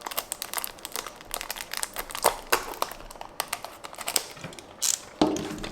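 Toy car packaging being handled: irregular crinkling and rustling with many small clicks.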